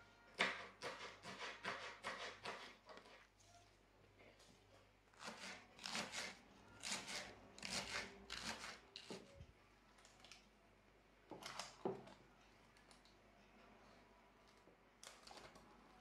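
Kitchen knife slicing green onion on a plastic cutting board, quick runs of sharp chopping taps with short pauses between them.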